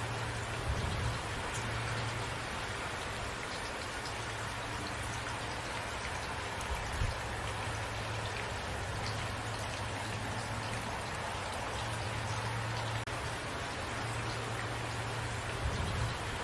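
Steady rain, with scattered drops tapping on a surface over an even hiss. A low rumble runs underneath, and there are a few dull thumps, at about a second in, near the middle and near the end.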